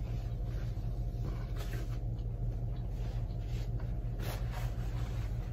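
A steady low electrical hum fills the background, with a couple of faint soft rustles as a paper napkin is handled.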